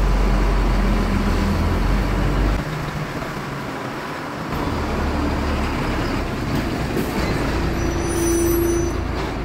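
Diesel engine of a car-carrier truck running close by as the truck pulls up at the fuel pump, with a deep rumble. The rumble eases off about two and a half seconds in and builds again a couple of seconds later.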